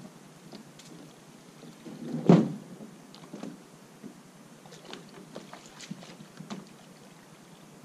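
Gear being handled at a canoe on the shore: one loud knock about two seconds in, then scattered lighter knocks and clicks.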